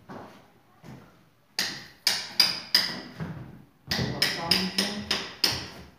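Hammer blows on metal, each with a short ringing tone. They come in two quick runs, about four strikes and then about six, with a pause of about a second between them, after a couple of fainter knocks.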